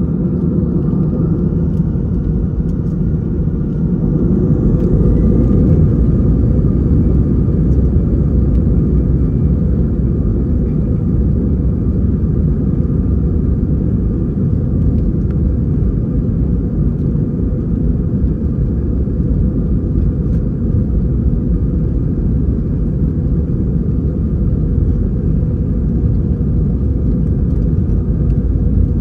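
Airbus A319's CFM56-5B turbofan engines heard from inside the cabin. A rising whine over the first few seconds as they spool up, then a steady loud rumble with a constant whine at high thrust, as for the takeoff roll.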